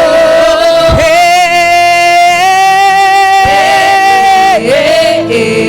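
Gospel worship song: a singer holds long wordless notes over the backing music, with low drum beats about a second in and again past the middle.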